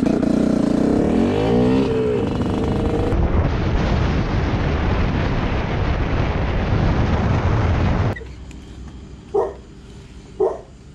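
GR7 250 two-stroke enduro motorcycle engine running under way with wind noise, the revs rising and falling about a second in. About eight seconds in the engine sound stops abruptly, and a dog barks twice near the end.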